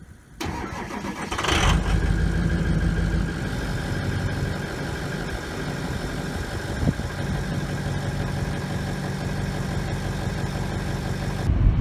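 Pickup truck engine starting, heard at its tailpipe: it catches about a second and a half in, runs louder briefly, then settles into a steady idle.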